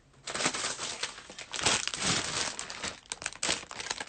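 Clear plastic wrapping around a folded fabric crinkling and rustling as it is handled. Starts about a quarter second in and goes on in uneven crackles.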